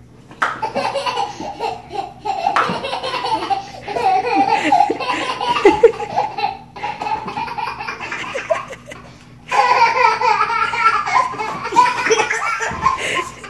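A toddler laughing hysterically in long fits, breaking off briefly twice before laughing hard again.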